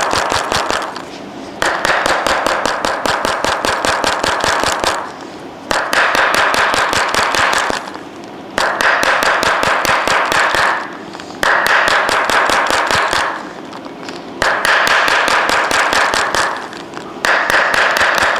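Rapid, even percussive tapping on the body during massage treatment, in about seven bursts of two to three seconds with short pauses between them.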